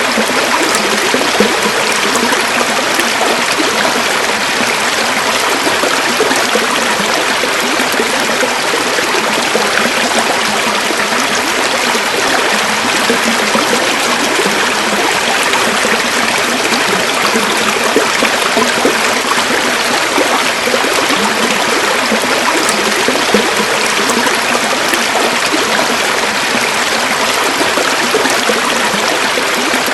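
A river's running water flowing steadily, a dense, even rushing with fine trickling and gurgling.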